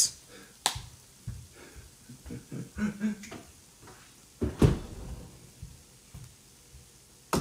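Kitchen handling sounds: a few scattered knocks and clicks of utensils, containers or cupboard doors being moved and set down. The loudest knock comes about four and a half seconds in.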